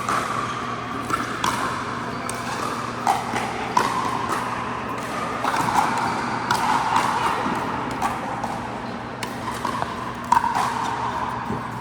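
Pickleball paddles striking the hard plastic ball in sharp, irregular pops during a rally, over a low steady hum.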